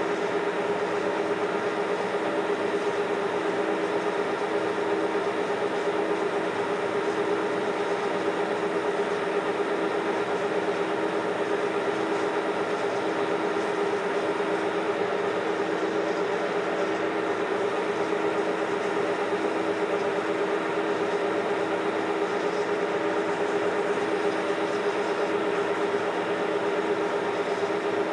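1952 Monarch Series 60 engine lathe running steadily with a constant drone and a couple of held tones, its tool taking a taper cut under the power compound (angular) feed.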